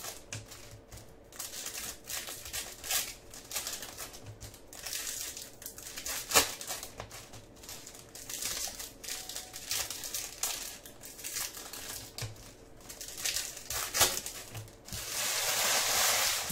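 Foil trading-card pack wrappers (Topps Chrome packs) crinkling and crackling as they are handled and opened by hand, with a few sharper snaps. Near the end a longer, denser crumpling as the empty wrappers are gathered together.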